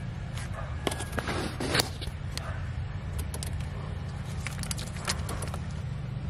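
Plastic wiring-harness connectors and wires being handled by hand: scattered small clicks and rattles, busiest between about one and two seconds in, over a steady low hum.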